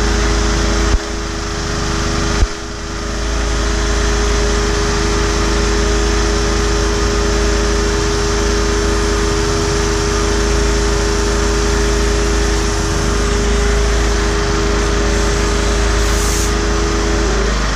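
Honeywell 1600-watt portable inverter generator running under load while a pancake air compressor runs off it, a loud steady machine sound with a steady hum from the compressor. Two sharp knocks come about a second and a half apart near the start, and the compressor's hum stops shortly before the end while the generator keeps running.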